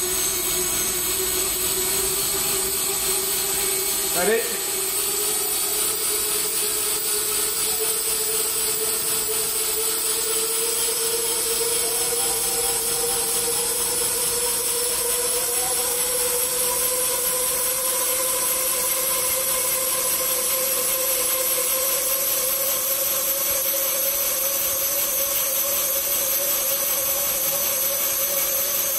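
Electric ducted fans on the blade tips of a tip-jet RC helicopter running steadily with a high whine and a lower hum as the rotor spins, their pitch climbing slowly as it speeds up. A brief sharp sound about four seconds in.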